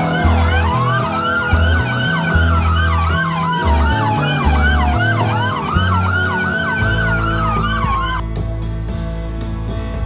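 Police vehicle sirens: one slow wail rising and falling, overlapped by a fast yelp sweeping up and down about three times a second. Both cut off about eight seconds in.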